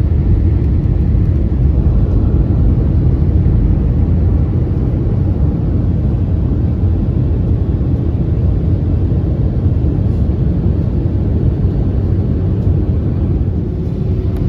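Steady low rumble inside the cabin of an Airbus A319 on its descent toward landing: engine and airflow noise.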